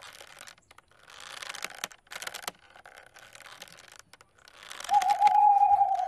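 Bursts of light clicking and rustling clatter, like paper being shuffled, separated by short pauses. A steady high tone joins the last burst for about a second near the end.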